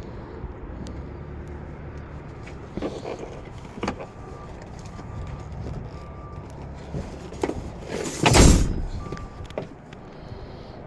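Handling sounds on a 2012 Audi Q7: scattered clicks and knocks, a few short electronic beeps, and one loud door-shutting thud about eight seconds in.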